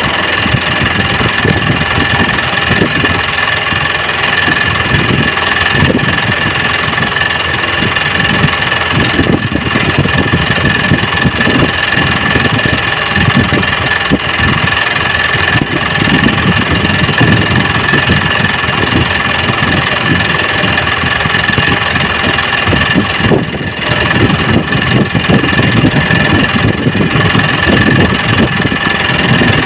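Small boat engine idling steadily, with a steady high tone over a busy, fluttering low rumble.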